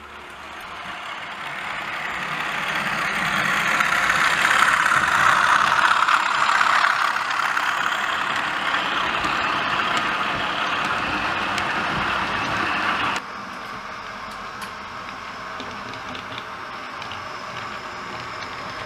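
OO gauge model diesel trains with DCC sound running on the layout: a steady engine-and-wheel noise that swells over the first few seconds as the locomotive approaches, then drops suddenly to a quieter steady running sound about two-thirds of the way through.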